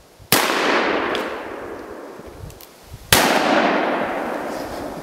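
Two gunshots about three seconds apart, each a sharp crack followed by an echo that fades away over two seconds or more.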